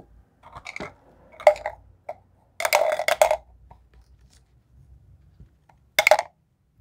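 Clear slime packed with small hard coloured pieces being squeezed and pulled by hand on a plastic plate, giving four short wet squelches and sticky pops, the longest a little under a second, near the middle.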